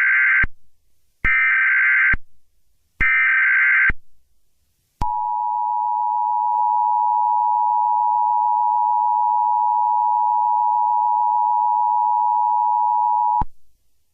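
Emergency Alert System tones: three short screechy bursts of SAME digital header data, the first already under way, followed by the steady two-tone EAS attention signal, which runs for about eight seconds and cuts off abruptly.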